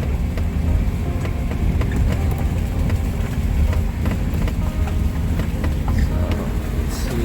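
Suzuki SJ410's engine running steadily as the small 4x4 drives, a low drone with light rattles and clicks over it.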